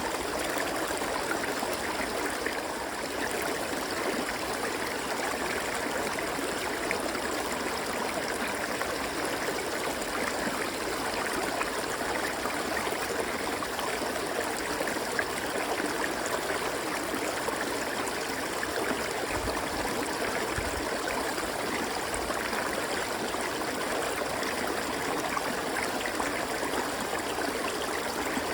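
River water flowing and rushing in a steady stream.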